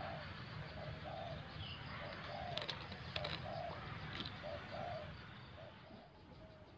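Spotted dove (tekukur) cooing, a run of repeated short coos that tails off near the end, with a few short ticks in the middle.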